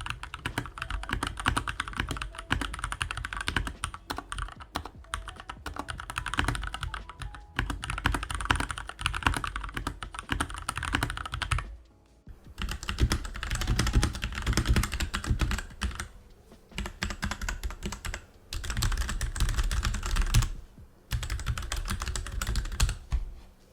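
Fast typing on pre-lubed, hot-swappable mechanical keyboards, the Keychron K2 with Gateron switches and the Royal Kludge RK84 with RK switches, as a sound test. It is a dense run of key clacks with a short break about halfway through, where the typing moves from one keyboard to the other, and brief pauses later on.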